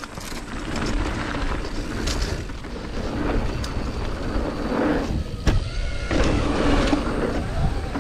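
Deviate Highlander mountain bike being ridden on a dirt trail: wind rushing over the microphone, tyres rolling on dirt and the bike rattling, with a sharp knock about five and a half seconds in.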